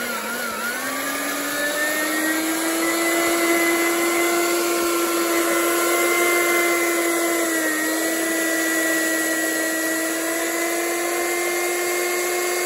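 Handheld electric paddle mixer running steadily, its motor whining as the paddle stirs a tub of thincoat render. The whine picks up in pitch about a second in and dips briefly near the eight-second mark.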